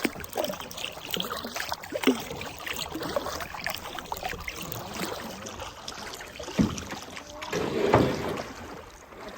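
Paddle strokes in river water from a small paddled boat, with splashing and small knocks, and a couple of louder thumps late on, the loudest near the end.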